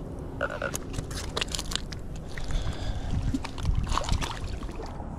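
Scattered clicks and rustles of hands handling fishing tackle, and a few steps on a gravel and shell bank, over a steady low rumble of wind on the microphone.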